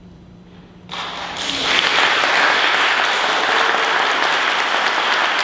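The last held notes of a Steinway grand piano fade away, then audience applause breaks out about a second in and quickly swells to full, steady clapping.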